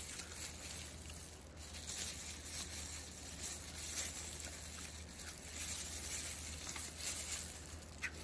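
Quiet room tone with a steady low hum and a few faint clicks and rustles of handling.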